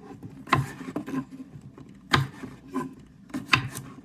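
Kitchen knife slicing a cucumber on a cutting board: several sharp chops at uneven intervals, with rubbing and scraping of the blade between them.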